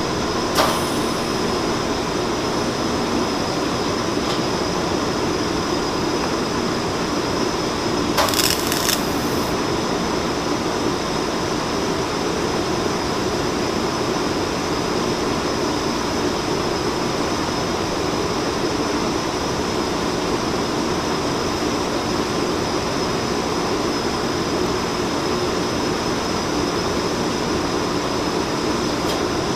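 TIG welding arc on cast iron, laying nickel filler rod onto a welded crack, a steady crackling hiss over the even hum of a fume extractor running. A brief sharper burst comes about 8 seconds in.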